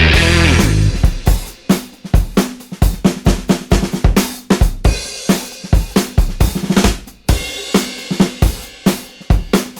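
Background music: a held chord dies away about a second in, then a steady drum beat with kick, snare and cymbals.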